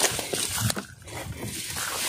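Footsteps and dry grass and reed stalks rustling and snapping as someone pushes through them on foot.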